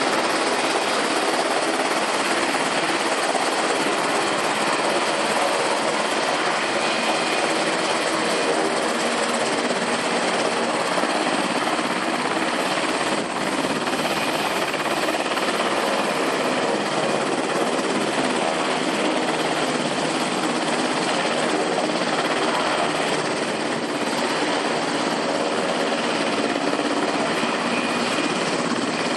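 Sikorsky UH-60 Black Hawk helicopter running on the ground, its twin turboshaft engines and turning rotors making a loud, steady noise.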